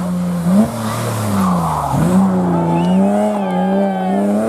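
Historic rally car's engine running hard at high revs, its pitch jumping and dipping with throttle and gear changes, a sharp drop about two seconds in, with a rush of tyre and road noise.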